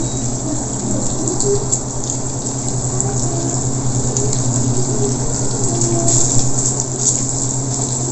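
Diced ham sizzling and crackling in a stainless steel skillet, with a steady low hum underneath.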